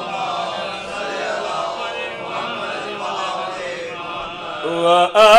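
A congregation of men reciting the salawat together in a chant, many voices blurred into one. Near the end a single male voice takes up a melodic recitation with a wavering pitch.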